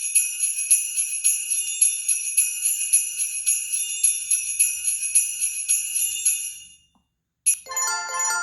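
Preloaded Google Pixel 3a ringtone: a high, sleigh-bell-like jingling pulsed about three times a second, fading out near the end. After a short silence a different ringtone begins, a melody of glockenspiel-like struck tones.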